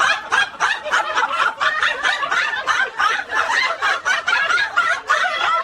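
A person laughing hard without stopping, in quick, rapid bursts of laughter.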